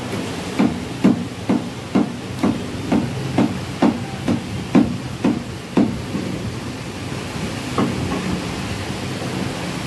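A meat cleaver chops through bone-in mutton on a wooden log chopping block. It makes a steady run of short chops, about two a second, that stops about six seconds in, with one more chop a little later. A steady background hiss runs underneath.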